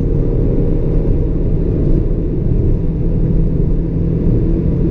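Car engine and road noise heard from inside the cabin, running steadily at speed with a constant low engine tone.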